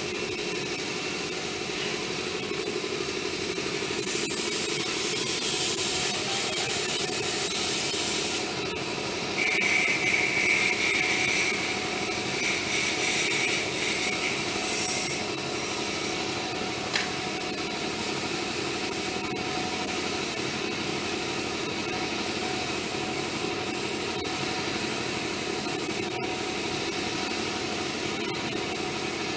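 Airbrush hissing steadily as it sprays paint, over a constant low hum. A high, thin whistling tone joins for a few seconds about ten seconds in.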